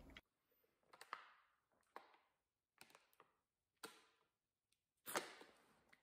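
Near silence, broken by a few faint, separate clicks and one short, louder sound about five seconds in.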